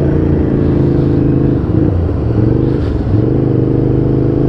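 Ducati motorcycle engine accelerating hard through the gears, its pitch climbing in each gear and dropping at the upshifts, about halfway through and again around three seconds in.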